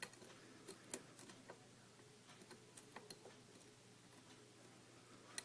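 Scattered faint clicks of a lock pick working the pins of a Kwikset-based pin-tumbler challenge lock under tension, as the picker tries to force a pin to set.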